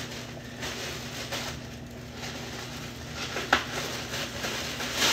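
Buttered cheese toast frying in a pan, a sizzle that swells and fades in patches, with one sharp clink of a utensil about three and a half seconds in, over a steady low hum.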